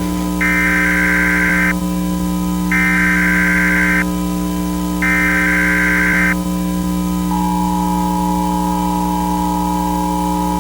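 Emergency Alert System SAME header: three buzzy data bursts about a second long each, with about a second between them. These are followed from about seven seconds in by the steady two-tone attention signal, all over a constant low hum.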